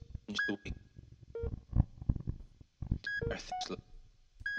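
Frame drum played by hand in irregular strokes, with dull knocks and scratchy rubs on the head. Short electronic beeps at a few different pitches sound between and alongside the strokes.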